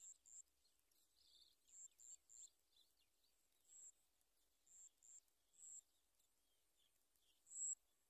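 Bar-winged prinia nestlings giving faint begging cheeps. About a dozen very high, thin, short peeps come at uneven intervals, with the loudest just before the end.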